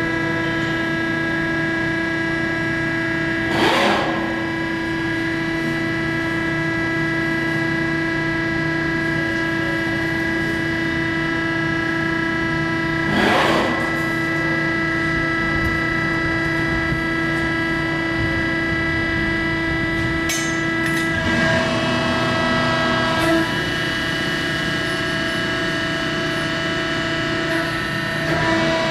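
A 15 hp Cincinnati 135-ton CNC hydraulic press brake running, its hydraulic pump giving a steady, many-toned hum. The hum is broken by a handful of short rushes of noise, and its lower tones shift for a couple of seconds about two-thirds of the way through.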